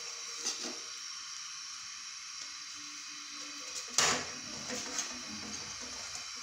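Quiet handling of a stainless steel sev (bhujia) press: soft knocks as dough is pressed into its cylinder, then one sharp metal clank about four seconds in as the press's hinged top plate is swung over, with a few light ticks after it. A faint steady hiss runs underneath.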